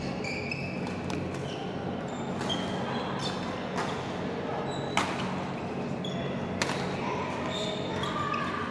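Badminton rally: rackets striking the shuttlecock, with two sharp, loud hits about five and six and a half seconds in and fainter hits from other courts, over short squeaks of shoes on the court and the echo of a large hall.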